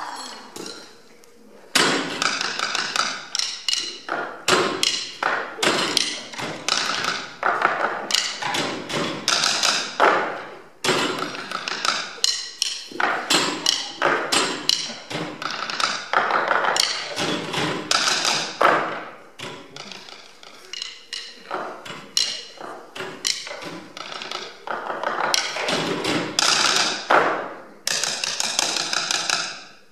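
Percussion ensemble playing a rhythmic piece on small school tables with drumsticks: fast, dense taps and knocks on the tabletops. There is a short pause about a second in and another near the end.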